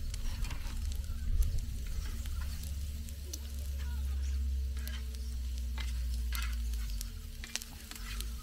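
Chorizo and halloumi sizzling in a non-stick paella pan over charcoal, with scattered clicks and scrapes of a metal spatula against the pan, over a low steady rumble.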